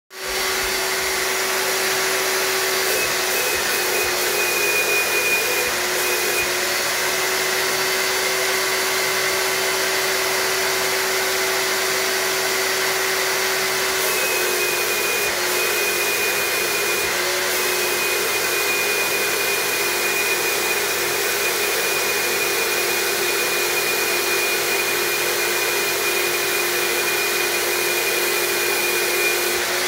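HVLP turbine paint sprayer running steadily: a continuous whine and rush of air like a vacuum cleaner, feeding a cup-topped spray gun that is spraying undercoat. A higher whine cuts in and out several times, and the pitch dips slightly now and then.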